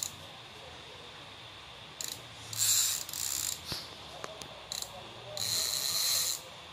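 Fishing reel clicker buzzing in several short, irregular bursts, the longest about a second long near the end.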